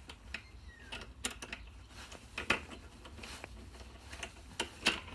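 Light clicks and taps of a concealed cabinet hinge's parts being handled, as the mounting plate is fitted onto the hinge's two little hooks, with a few sharper clicks near the end.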